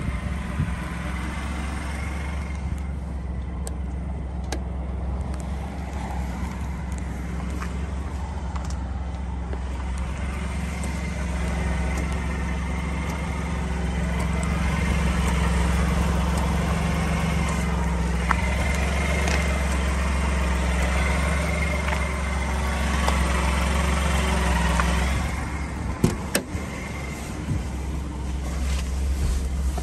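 Small supercharged engine of a 1988 Mitsubishi Minicab kei truck idling steadily. It grows louder through the middle stretch, and a few sharp knocks come near the end.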